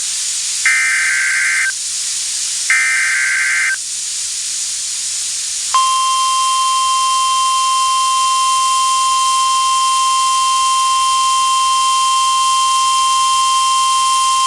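Emergency Alert System SAME header: buzzy digital data bursts about a second long, one ending just as another two follow a second apart. After a pause of about two seconds comes the NOAA Weather Radio 1050 Hz warning alarm tone, a single steady high tone held for about nine seconds, the signal that a warning message follows.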